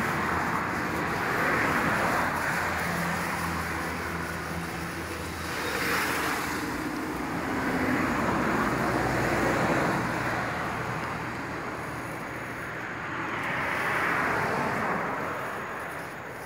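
Road vehicles passing one after another: a steady rushing noise that swells and fades about four times, with a low engine hum under some of the swells.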